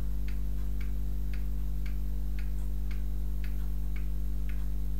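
A clock ticking steadily, about two ticks a second, over a steady low electrical hum.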